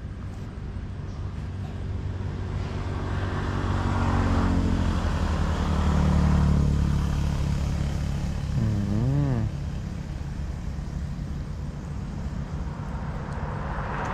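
A motor vehicle's engine passing by, growing louder to a peak about six seconds in and then fading, with a short wavering tone about nine seconds in.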